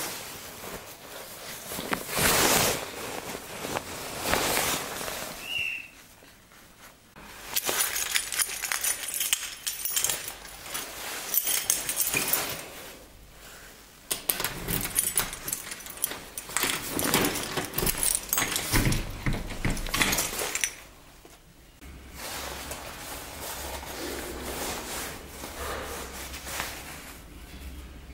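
A bunch of keys jangling and scraping in a door lock, in several bursts mixed with rustling and handling noise. In the last several seconds a low steady hum sits underneath.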